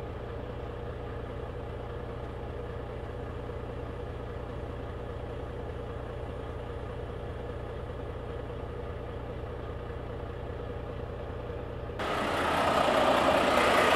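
Semi-truck diesel engine idling with a steady low hum. About 12 seconds in, the hum gives way suddenly to a louder rushing, hissing noise.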